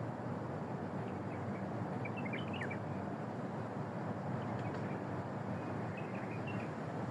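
Steady outdoor background rumble, with a few faint high chirps about two seconds in and again near six seconds.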